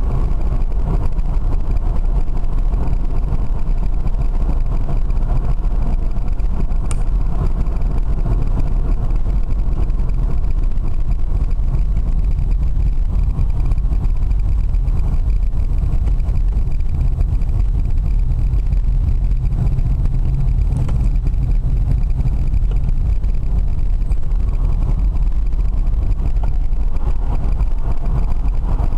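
Steady low rumble of road and wind noise inside the cabin of a BMW converted to electric drive, driving along.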